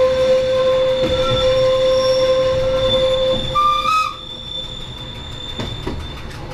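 Metre-gauge electric train's wheels squealing steadily in a tight curve, heard from the cab over the running noise. A short rising squeal comes about halfway through, then the squeal fades and quieter running goes on.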